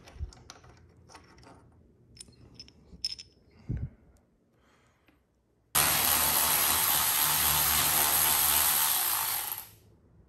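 A few light clicks and clinks as small bolts are handled. Then a cordless electric ratchet runs steadily for about four seconds, backing out the handlebar clamp bolts.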